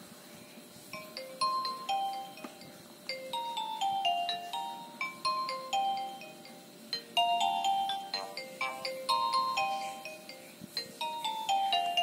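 A Nokia mobile phone's loudspeaker plays a preview of one of its built-in polyphonic ringtones. The bell-like melody starts about a second in and is made of short notes in descending runs, with the phrase repeating every few seconds.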